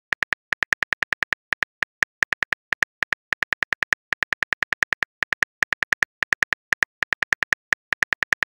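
Smartphone keyboard key clicks as a text message is typed out, a fast run of short taps about six a second with a few short pauses.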